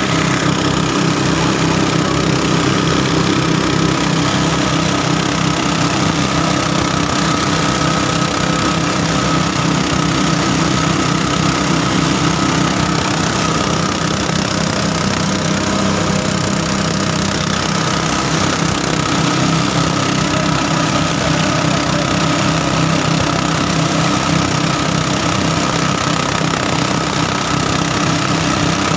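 A small engine running steadily at one constant speed.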